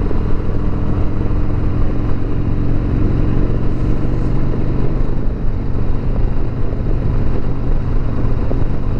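2020 Harley-Davidson Sport Glide's Milwaukee-Eight V-twin engine running steadily while riding, with wind and road noise.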